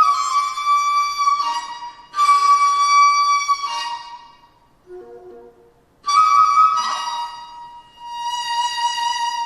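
Daegeum, the large Korean bamboo transverse flute, playing long held high notes in three phrases, several of them stepping down to a lower held note. About four seconds in it pauses, and only soft lower notes sound before it comes back in.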